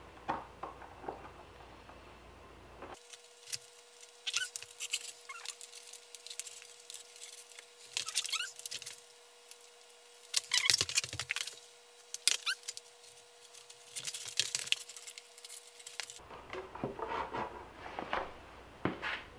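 Cord being pulled through a toboggan's wooden crossbars and bent plastic deck and drawn tight: several bursts of scraping and rustling, some with short rising squeaks.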